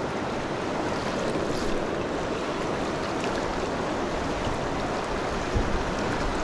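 Shallow, fast river rushing over a stony riffle close to the microphone, a steady wash of water. A brief low thump comes near the end.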